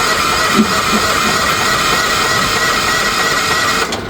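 Future FT15 mini excavator's electric starter cranking the engine with a steady whine, the engine not catching; it cuts off just before the end.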